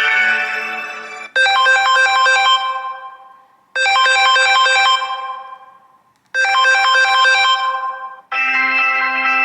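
Samsung One UI phone ringtone: a short, bright phrase of chime-like notes that plays three times, about two and a half seconds apart, each dying away. The tail of another tone fades out at the start, and a different tone with held notes begins near the end.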